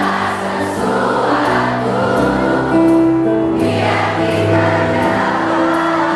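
Audience singing together like a choir over a live pop band's accompaniment, with a bass line and a steady beat.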